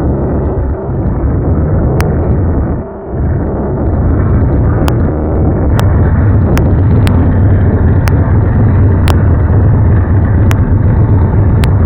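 Steady low vehicle rumble, heard from inside a car, with about nine sharp clicks scattered through and a brief drop in level just before three seconds in.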